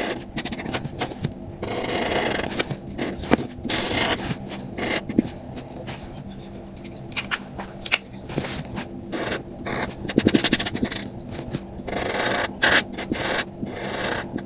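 Paper or card being handled at close range: repeated stretches of scraping and rubbing with sharp clicks and taps between them.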